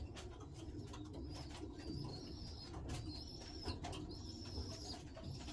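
Racing pigeons cooing, with a thin high chirp repeating about once a second.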